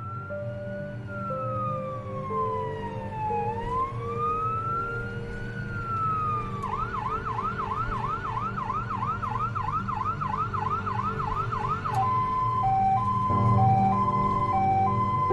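Electronic emergency-vehicle siren: two slow rising and falling wails, then a fast yelp cycling about three times a second from about seven seconds in, switching to a two-tone high-low alternation near the end.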